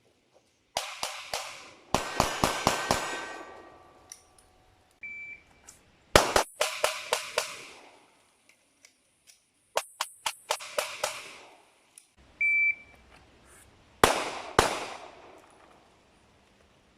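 Airsoft gun firing in quick strings of shots, each crack followed by a short ringing. A short steady beep sounds twice, each a second or so before a string.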